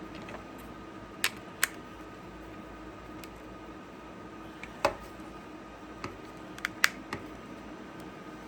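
Scattered sharp clicks and taps, about seven in all, of small plastic parts and a screwdriver being handled while a 3D printer's fan shroud is screwed back together, over a faint steady hum.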